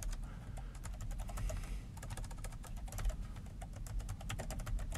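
Typing on a computer keyboard: quick key clicks in irregular runs with short pauses.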